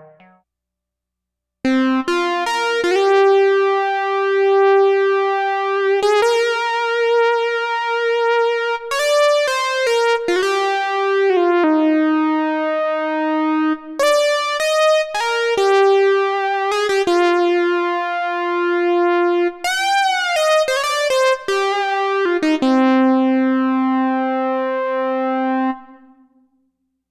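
Moog Minimoog analogue synthesizer playing a single-note lead melody in a bright tone, one note at a time with some held notes. It starts after a short silence, swoops up and down in pitch about three-quarters through, and ends on a long held note that fades out.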